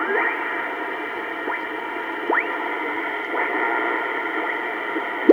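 Kenwood TS-820S receiver audio: steady band hiss and static, with several short heterodyne whistles that sweep upward in pitch as the dial is tuned across carriers.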